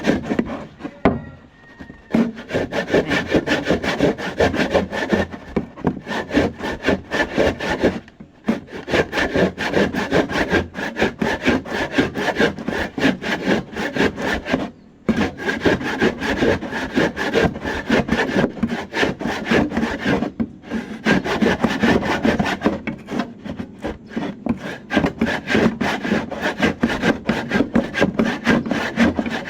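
Hand saw cutting with steady, rapid back-and-forth strokes, the blade rasping through the work. The sawing stops briefly a few times and resumes.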